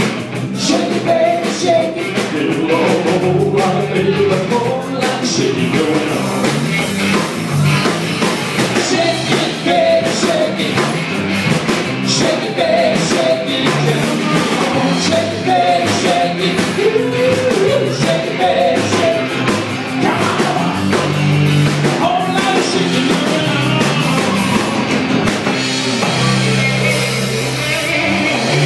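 Live rock and roll band playing a song: electric guitars, bass and drum kit with a steady beat, and a singer's voice over them.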